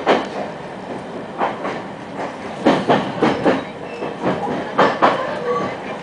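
Wheels of a Hokuetsu Express HK100 electric railcar clattering over rail joints as it runs, heard from inside the car, with the steady running rumble underneath. The clacks come at irregular intervals, several of them in quick pairs in the second half.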